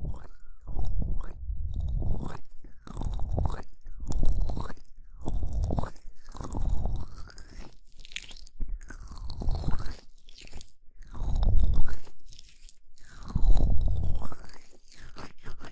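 Hands rubbing and cupping over the ears of a binaural microphone, close-up rustling and crackling in repeated strokes about once every second or two, with a deep rumble on each stroke.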